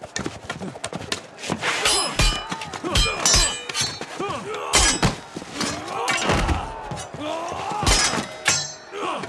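Staged film fight sound: a spear and greatsword clash with ringing metallic clangs, mixed with heavy thuds and blows, over music. The clangs are many and irregular.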